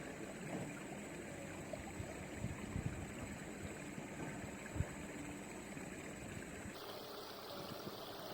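Steady sound of river water, with a few dull knocks; the loudest comes about five seconds in.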